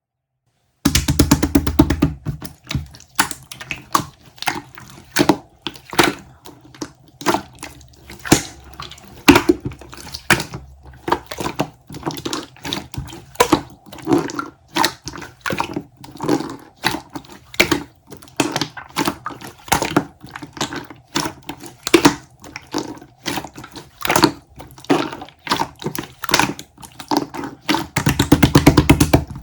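A dense run of irregular clicks and small wet-sounding pops, several a second, starting suddenly about a second in.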